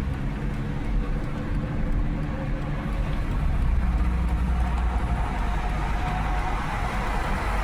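Hyundai Genesis Coupe driving with the windows down, heard from inside the cabin: the engine pulling under way over a steady low rumble of road and wind noise.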